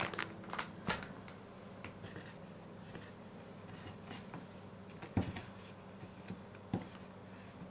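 Hands tossing and separating flour-dusted fresh udon noodles on a wooden cutting board: soft handling sounds with a few light taps, the clearest about five seconds in and again near seven seconds, over a faint steady hum.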